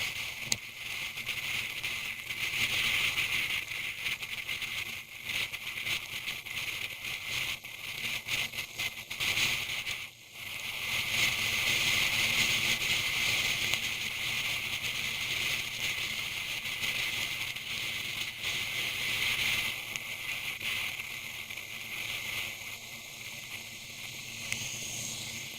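Hissing rain and wet-road spray during a motorcycle ride, with crackling raindrop hits. The hiss drops out briefly about ten seconds in.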